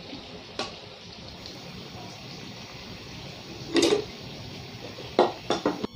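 Chicken in ghee masala gravy simmering in a pan: a steady sizzling hiss with a few sharp pops or clicks, the loudest about four seconds in and a quick cluster of three near the end.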